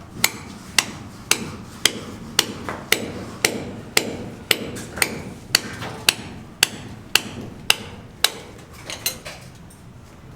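Hammer striking in a steady rhythm, about two blows a second for around sixteen blows, followed near the end by a few lighter taps.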